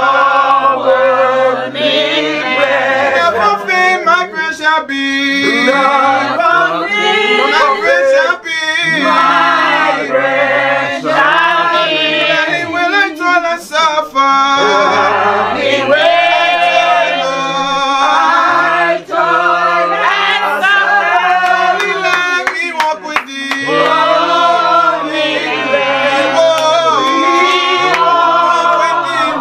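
Church congregation singing a hymn together, slow, with long held notes.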